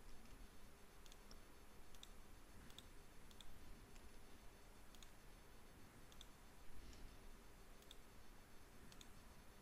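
Faint computer mouse clicks, spaced irregularly about once a second, over low room hiss.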